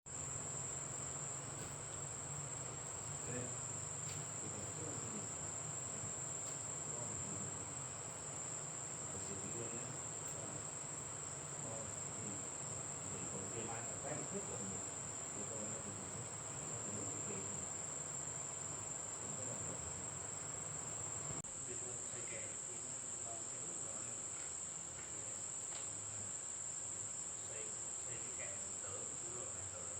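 Insects singing in a steady, unbroken high-pitched chorus that grows a little louder about two-thirds of the way through, over a faint low hum.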